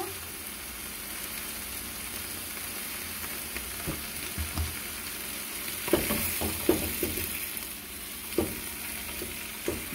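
Fresh spinach leaves sizzling steadily in a hot pot with a little oil and chopped green onion as they begin to sweat out their water. A few short knocks and rustles come around six to seven seconds in and again near eight and a half as the leaves are handled in the pot.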